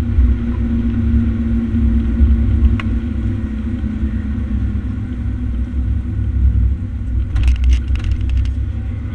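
Fire engine driving at road speed: a steady low rumble of engine and road noise with a constant engine drone, and a few sharp clicks about seven to eight seconds in.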